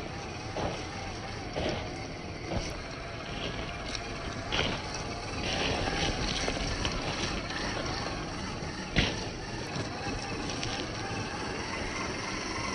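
1/10-scale RC crawler truck (YK4102 pro, Jeep Rubicon body) driving over rough ground: its electric motor whines, wavering in pitch with the throttle, over a steady noise of tyres on dirt and rock. Several sharp knocks come as it bumps over obstacles, the loudest about nine seconds in.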